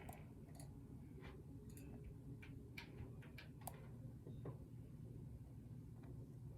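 Faint, irregular metallic ticks and clicks of a lock pick and tension tool working the pins inside a pin-tumbler lock.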